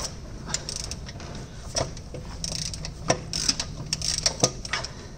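Ratchet wrench clicking in uneven strokes as it works the drain plug on the bottom of a semi truck's Meritor rear differential housing.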